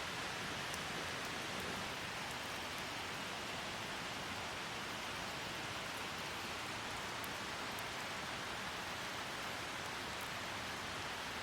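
Light rain falling steadily, with a few faint scattered ticks.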